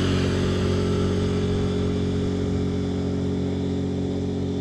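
Outboard motor of a small aluminium boat running steadily at cruising speed, a constant low hum heard from on board.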